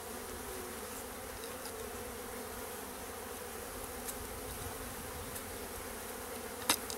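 A mass of honey bees buzzing steadily around an open hive, freshly shaken out of their package, the buzz wavering in pitch. A single sharp knock near the end.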